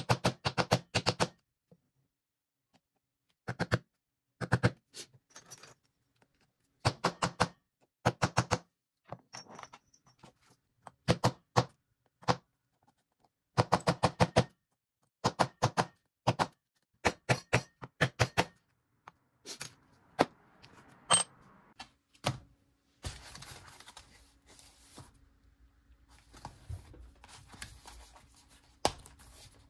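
Quick bursts of sharp hammer strikes on leatherworking tools, about four to six taps per burst, with pauses of a second or two between bursts. In the last third the strikes give way to softer knocks and scraping over a faint steady hum.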